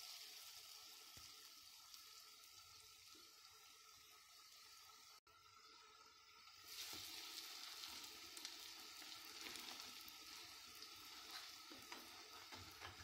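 Faint steady sizzling of hot oil as pişi dough fritters fry in a shallow pan. It breaks off for an instant about five seconds in, then grows louder about halfway through.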